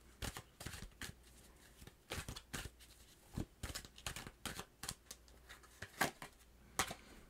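Tarot deck being shuffled by hand: a run of short, irregular card flicks and snaps.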